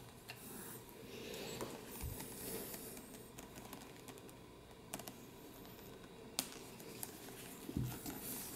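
Gloved hands handling a calfskin leather shoulder bag: soft rustling with scattered light clicks and taps, a sharper click about six seconds in, and a couple of low thumps.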